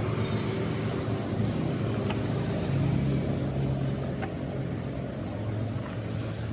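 A motor or engine running steadily with a low, even hum, with a couple of faint clicks over it.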